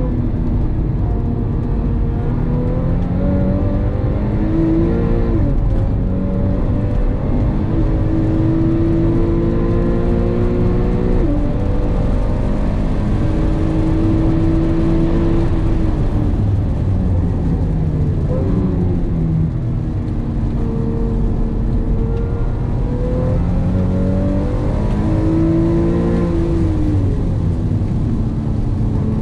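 Porsche 911 (997) flat-six engine heard from inside the cabin at track speed, its pitch climbing under throttle and dropping away several times as the car goes round the circuit.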